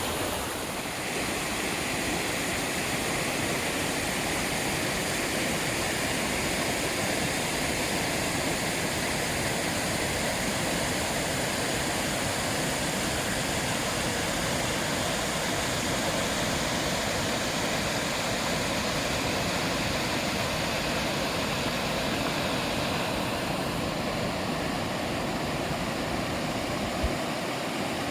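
Steady rushing water of a creek swollen by flash flooding, with one short click near the end.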